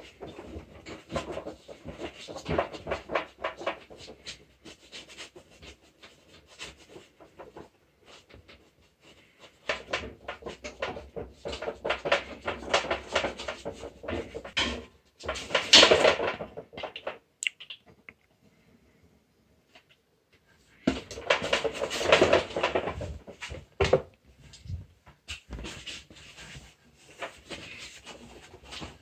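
Paintbrush scrubbing paint onto a canvas close to the microphone, in quick scratchy strokes that come in spells of several seconds with short pauses between them.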